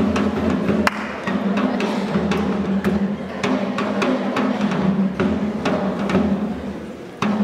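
Percussion music: drums played in a quick rhythm of sharp strikes. It drops away briefly near the end, then comes back.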